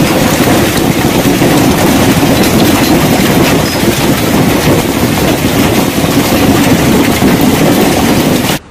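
Heavy hail pelting parked cars and pavement: a loud, dense clatter of countless small impacts.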